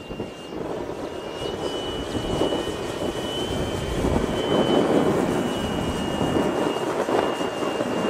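Model Piper Cub flying past, its motor heard as a steady high whine over a rushing noise that swells as it passes nearly overhead midway, then eases off.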